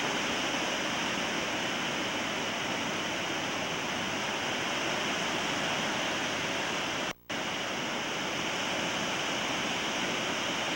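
Heavy ocean surf breaking and washing around the waders, a steady rush of water. The sound drops out for a split second about seven seconds in.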